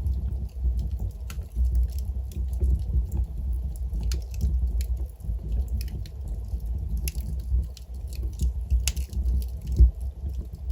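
Wood logs burning in a fireplace: irregular sharp crackles and pops over a steady low rumble of the flames, with one louder low thump near the end.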